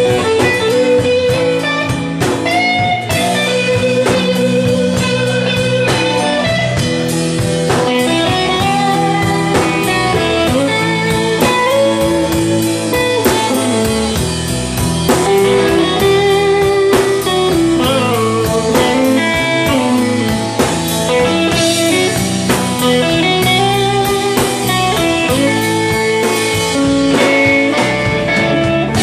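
Blues band playing live: an electric guitar lead with bent, wavering notes over drums and a steady low accompaniment.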